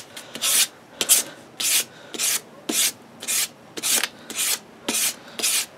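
400-grit sandpaper on a hand-held block stroked along the steel edge bevel of a Newfoundland logger's axe: about ten even, dry scratching strokes, nearly two a second. It is the 400-grit stage of sharpening, wiping out the 100-grit scratches.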